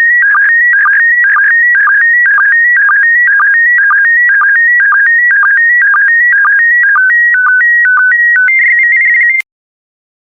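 Slow-scan TV image signal in PD120 mode: a loud, high warbling stream of tones hopping between a few pitches in a pattern that repeats about twice a second, each repeat carrying a pair of picture lines. Near the end the pattern turns to steadier tones as the last lines of the image are sent, then the signal cuts off suddenly at the end of the transmission.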